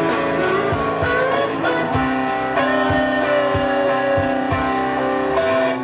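Blues-rock music with electric guitar playing bending lead notes over bass and a steady drum beat.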